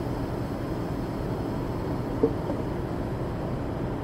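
Steady in-cabin road and engine noise of a car moving in highway traffic, picked up by a dashcam, with one brief faint sound about two seconds in.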